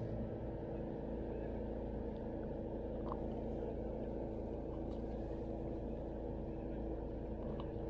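Steady low rumble of a boat motor running, with a few faint light clicks over it.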